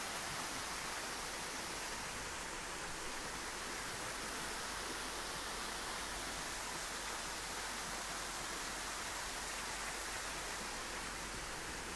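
Steady, even hiss with a faint low hum underneath; it does not change and nothing else stands out.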